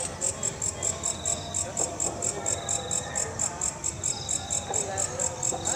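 Walang kecek katydid calling: a fast, even train of high chirps, about five a second.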